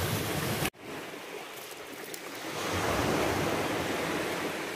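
Waves washing on a pebble shore with wind on the microphone, cut off abruptly less than a second in. Then a hiss of splashing water swells and fades as water is poured from a large plastic bottle over a person's head.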